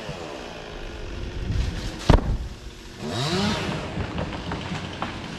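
Chainsaw engine revving up and dropping back, with one sharp, loud knock about two seconds in.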